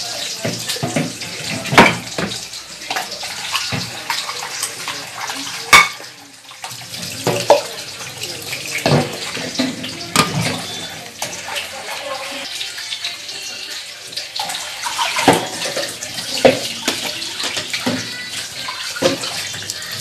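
Tap water running into a stainless steel sink and metal basin while cups and dishes are rinsed, with repeated clinks and knocks of the dishes against the basin, several of them sharp and loud.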